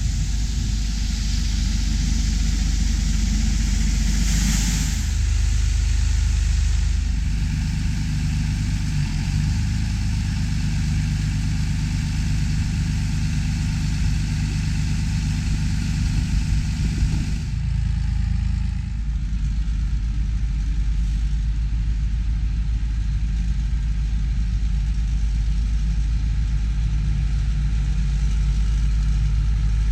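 Heavy farm machinery's engine running steadily during soybean harvest, with a hiss over the low engine note. About two thirds of the way in the hiss drops away abruptly and the engine carries on.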